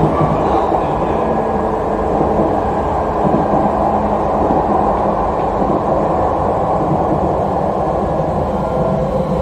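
Interior noise of a Jakarta MRT train car running along the line: a steady rumble from the wheels and running gear, with a faint hum.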